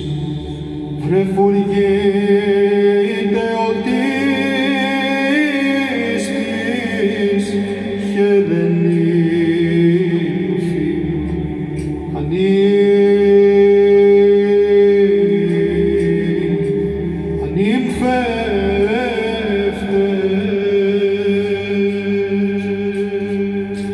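Male Byzantine choir chanting unaccompanied: the ison, a steady held drone, runs under a melody line that rises and falls in long ornamented turns, fading near the end.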